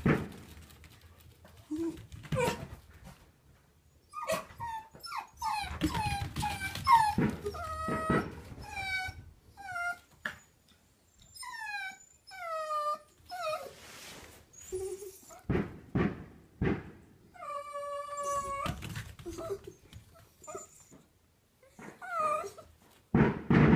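Miniature dachshunds whining and yelping in a long string of short, high cries that fall in pitch. About three-quarters of the way through comes one longer, steady whine, and a few short sharp sounds fall in between.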